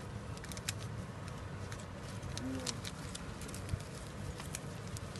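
Small packet being handled in the fingers, giving off scattered light clicks and crinkles over a steady low rumble.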